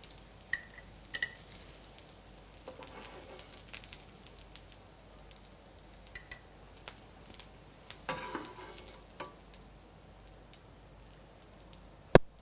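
Aloo tikki potato patties sizzling faintly in a frying pan, with ringing metal clinks of a spatula and pan lid, a scrape about two-thirds of the way through as the cooked patties are lifted out, and one sharp loud clank near the end.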